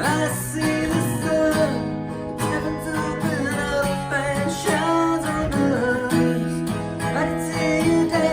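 Instrumental passage of the song played on acoustic guitar: strummed chords under a lead line with some bending notes.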